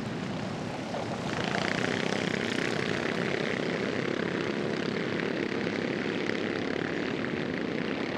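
A pack of Junior 2 off-road race karts running flat out, their small engines buzzing together in a steady drone. It gets louder about a second in.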